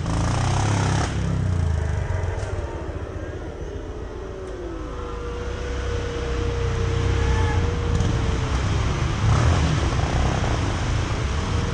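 ATV engines heard faintly at a distance, a thin whine drifting up and down in pitch over a steady low rumble.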